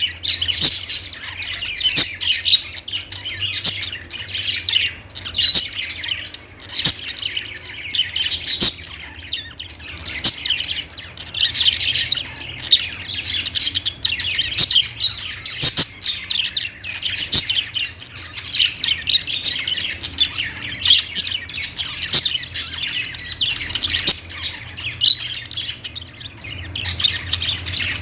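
A group of budgerigars chirping and chattering without pause, many short high calls overlapping, with sharper squawks here and there. A faint low hum runs underneath.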